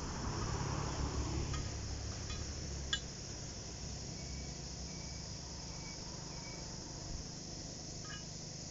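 Steady high-pitched chirring of insects, with a low rumble over the first few seconds and a few light clinks, the sharpest about three seconds in.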